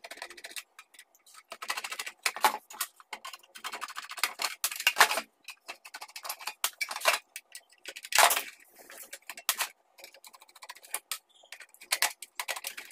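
A screwdriver turning screws out of a mini inverter's sheet-metal casing: irregular clicks, ticks and scrapes of metal on metal.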